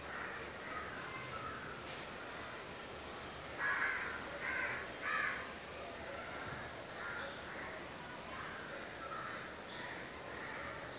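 Crows cawing: three loud, harsh caws in quick succession about four seconds in, with fainter caws through the rest.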